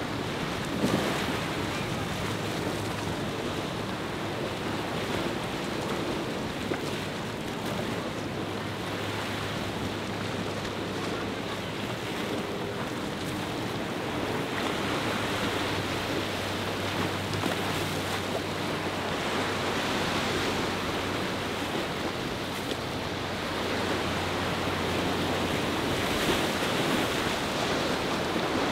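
Waves and surf with wind buffeting the microphone, over the steady low drone of a flybridge motor yacht's engines as it runs through rough inlet water. The low engine drone weakens near the end.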